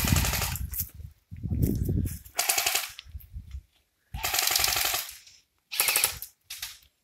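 Airsoft rifles firing on full auto in several short bursts of rapid clicks, with brief pauses between them.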